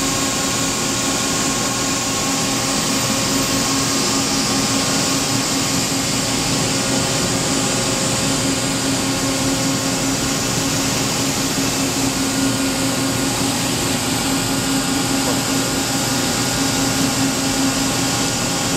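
Steady hum of running machinery: an even hiss with a steady droning tone underneath and a few fainter steady tones above it.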